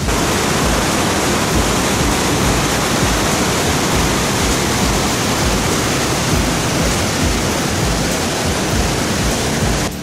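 Upper Düden Waterfall's white water rushing in a loud, steady wash of noise, which cuts in sharply at the start and stops abruptly just before the end.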